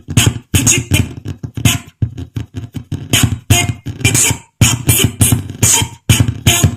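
Music with a beatboxing-like beat playing from a Xiaomi Redmi Note 3 Pro phone, choppy, with several brief drops to near silence.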